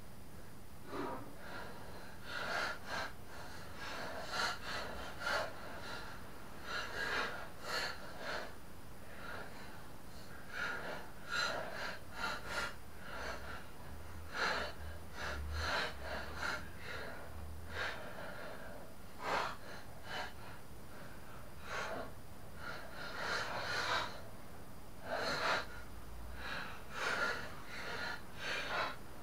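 Irregular short scrapes and clicks of a hand tool and loose metal parts as the blades are fitted and bolted to the cutting disc under the deck of an upturned Honda HR216 mower.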